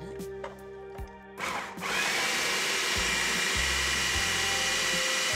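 Food processor running, blitzing raw cauliflower florets into rice-sized crumbs. It starts about a second and a half in and runs on steadily, a motor whine over the chopping noise.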